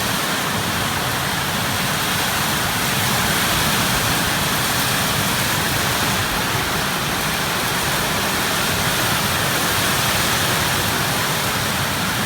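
Heavy rain pouring down in a thunderstorm, a steady, even rush with no break.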